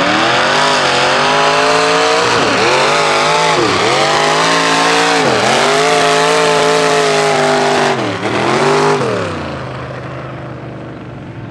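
Lifted Ford Super Duty mud truck's diesel engine at full throttle while dragging a heavy tractor tire. The engine note dips and climbs back up about four times, then drops off and fades near the end.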